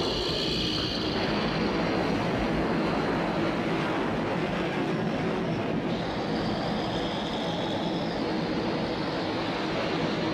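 Film sound effect for a glowing staff's energy beam: a steady, loud, dense rushing rumble with faint high whining tones above it.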